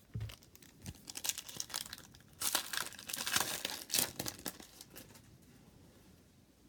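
A trading card pack wrapper crinkling and being torn open by hand, loudest through the middle and dying away near the end.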